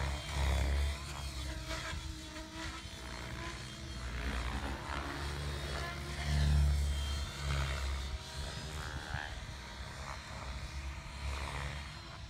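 700-size radio-controlled helicopter flying at a distance, its rotor and motor sound swelling and fading as it manoeuvres. Wind rumbles unevenly on the microphone.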